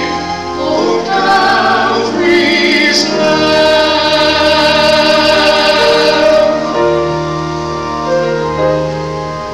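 Church choir and a male soloist singing a cantata, with long held notes and vibrato, over a sustained accompaniment. The singing thins out about two-thirds of the way through, leaving mostly the accompaniment.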